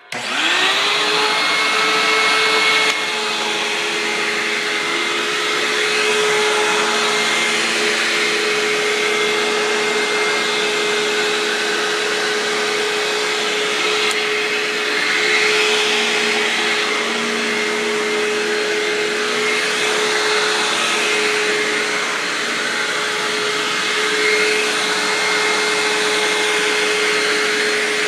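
Hoover WindTunnel upright vacuum cleaner switched on, its motor spinning up to a steady whine within half a second. It then runs steadily, with small rises and falls in level.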